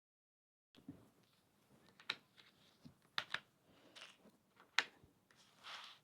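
Jigsaw puzzle pieces being handled and pressed together on a tabletop: a few sharp clicks and light taps, then a brief rustle near the end. The sound starts about a second in after dead silence.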